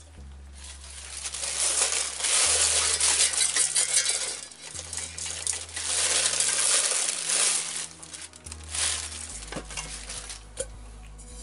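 Scraping and rustling from handling rice cooker parts, in long uneven swells, with a few small metallic clicks near the end.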